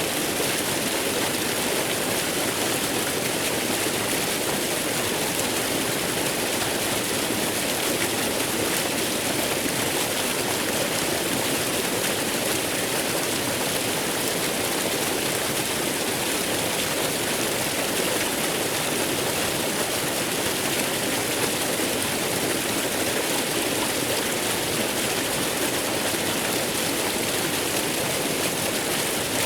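Waterfall: a steady rush of falling water, with no change from start to finish.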